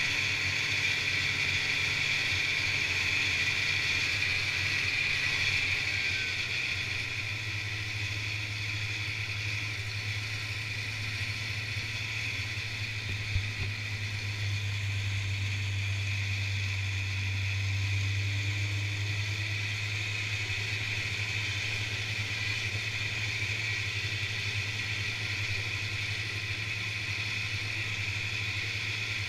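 Polaris snowmobile engine running steadily under way along a packed snow trail, with its track and hiss of travel. The engine note drops slightly a few seconds in, and there is a single short knock near the middle.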